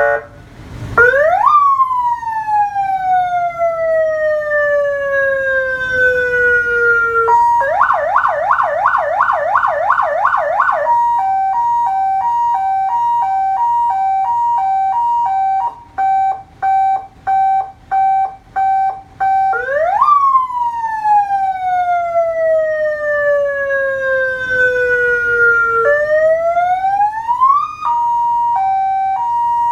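An electronic emergency-vehicle siren cycling through its tones. It rises quickly and then slides slowly down in a long wail, switches to a fast warbling yelp, then settles into a two-tone hi-lo with about two changes a second. It goes back to long falling wails and returns to the hi-lo near the end.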